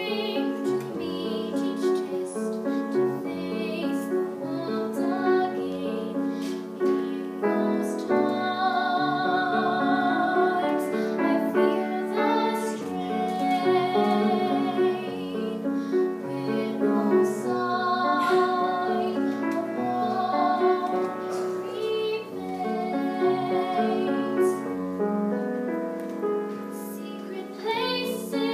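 Slow, gentle song: a female voice singing long held notes with vibrato over a soft piano-like accompaniment.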